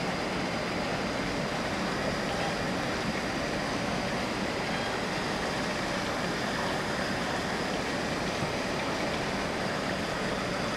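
Steady rushing background noise with a faint high whine running through it, and no distinct knocks, steps or animal calls.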